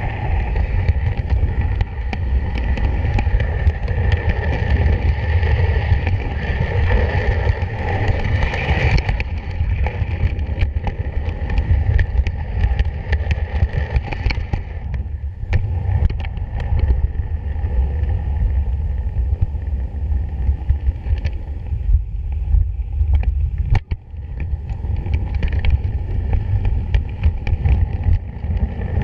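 Ride-on miniature railway train running along the track, heard from a wagon: a steady low rumble of wheels on rail, with scattered sharp clicks from about halfway through. The sound is fuller and brighter for the first nine seconds or so, then thins.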